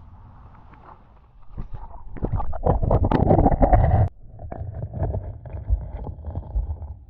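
Water splashing and sloshing right against a GoPro action camera as it is put into the creek, loud for a couple of seconds and then cutting off abruptly. After that comes the muffled low rumble and scattered faint clicks of the camera's microphone underwater.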